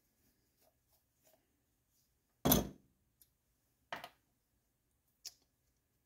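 Handling knocks from the metal parts of a small air compressor being taken apart: a loud knock about two and a half seconds in, a softer double knock about a second and a half later, and a light click near the end.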